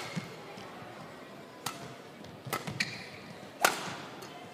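Badminton rally: rackets strike the shuttlecock three times about a second apart, the last hit the loudest, with short squeaks of shoes on the court floor in between.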